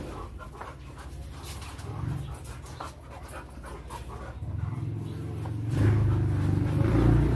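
Several dogs panting and moving about on their leashes. About six seconds in, a louder low rumble starts.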